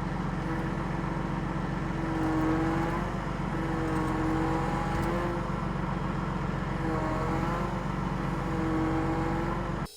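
Tractor engine running under load while pushing snow, its pitch rising and falling several times; it cuts off abruptly near the end.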